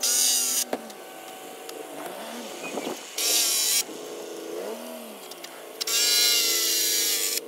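Cordless drill driving screws into a cedar fence rail: three short bursts of whirring, the last one the longest, about a second and a half.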